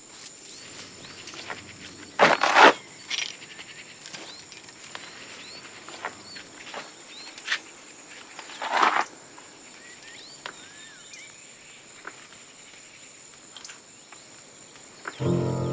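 Outdoor ambience of insects with a steady high buzz and scattered small bird chirps. Two brief rustling scuffs of people moving about stand out, about two seconds in and about nine seconds in. Music comes in just before the end.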